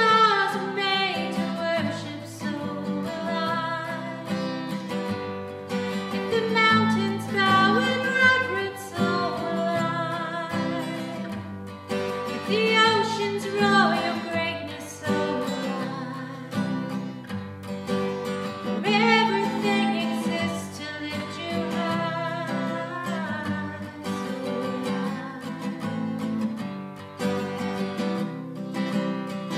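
Worship-band music: strummed acoustic guitar under a gliding melodic lead line, in a long passage without lyrics.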